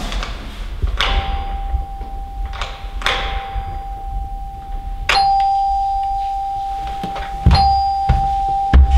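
Doorbell ringing: a steady bell tone struck about four times, roughly every two seconds, with the later strikes louder.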